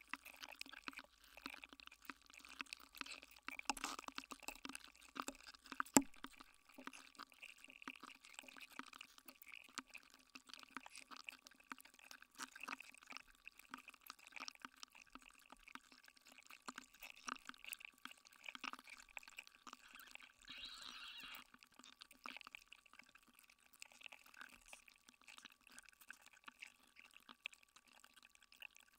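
A block of ice melting in water, heard through contact microphones frozen inside it: a dense, irregular scatter of small clicks, pops and ticks as the ice cracks, with one sharp, much louder crack about six seconds in.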